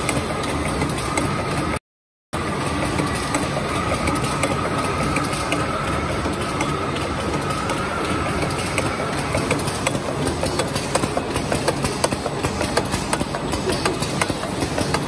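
Bouillon cube wrapping and boxing machine running: a steady mechanical clatter of rapid clicks, with a faint steady whine through the first half. The clicking grows sharper and spikier in the second half, and the sound cuts out briefly about two seconds in.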